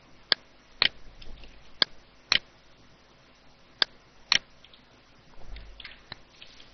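Computer mouse buttons clicking: sharp single clicks in three pairs about half a second apart, then one more near the end.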